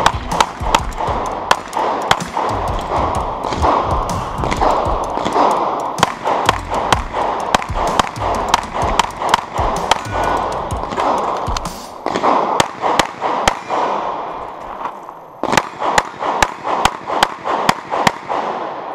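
Rapid pistol fire from a Tanfoglio Gold Custom Open competition pistol: dozens of shots in fast pairs and strings, with a short break about three quarters of the way in before another quick string. Music plays underneath.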